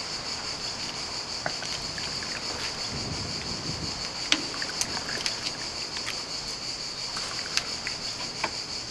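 A steady, high-pitched drone of insects, with hot lemon balm tisane poured from a saucepan into small cups and a few light clicks of the cups.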